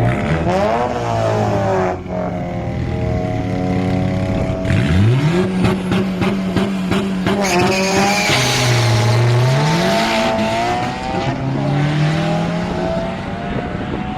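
Turbo-swapped 2007 Chevrolet Cobalt SS engine revving up and down repeatedly, with tires squealing through the middle of the run, strongest about eight to ten seconds in, as in wheelspin.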